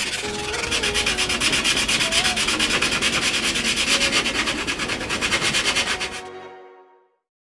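Hand sanding: a sanding block rubbed back and forth along a white-painted timber lining strip in quick, even strokes, several a second. The scraping fades out about six and a half seconds in.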